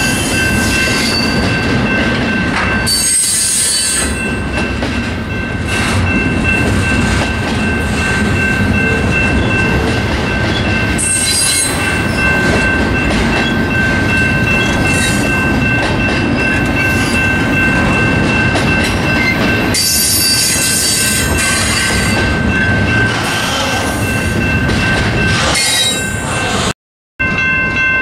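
Double-stack intermodal freight train rolling past close by: a steady rumble and rattle of the well cars over the rails, with a continuous high-pitched squeal and a few short bursts of hiss. The sound drops out briefly just before the end.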